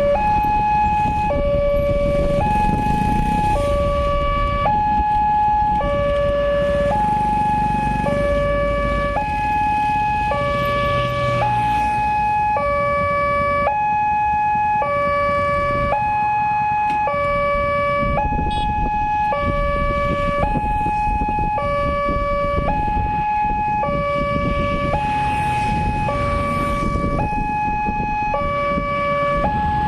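Railway level-crossing warning alarm from the loudspeaker on the signal post: an electronic two-tone signal switching steadily between a high and a low note about once a second. It warns that the barriers are down and a train is approaching.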